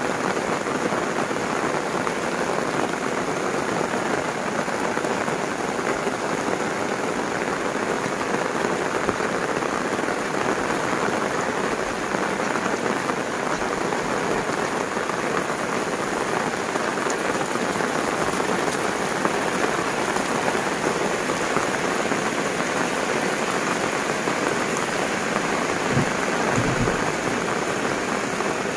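Heavy rain falling steadily on foliage, roofs and a road, a dense even hiss. A brief low thump comes near the end.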